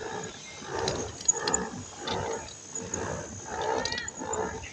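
Pedal boat being pedalled: its pedal drive gives a rhythmic groaning churn, about three strokes every two seconds, with a sharp click a little after a second in and a short rising chirp near the end.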